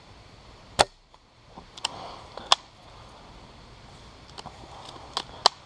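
Airsoft guns (spring or gas pistols, shotguns and sniper rifles, no electric guns) firing: about six sharp, irregular pops, the loudest about a second in and two more near the end.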